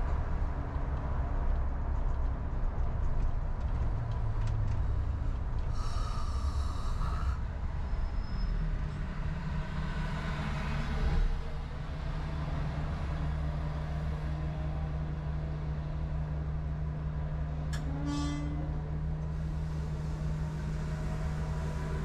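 Car road noise as it slows to a stop, then a steady low engine hum while idling. A brief high-pitched squeal sounds about six seconds in.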